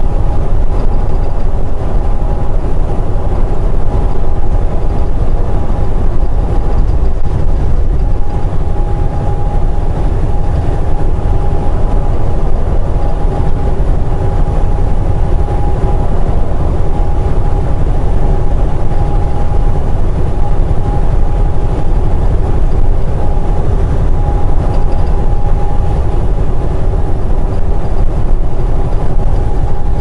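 Semi truck cruising at highway speed, heard from inside the cab: a steady low engine drone and road rumble with a thin steady whine over it.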